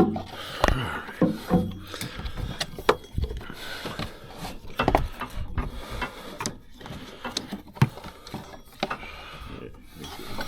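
Irregular light clicks and knocks of tools and parts being handled, with faint low voices in the background.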